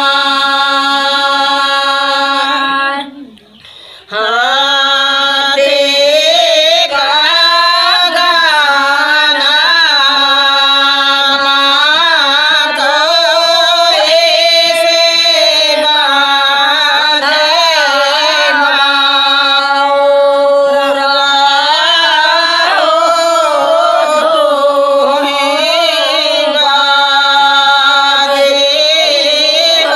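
Women singing a Bagheli wedding folk song (vivah geet) in unison without instruments, in long held notes that waver and bend, with a short break about three seconds in.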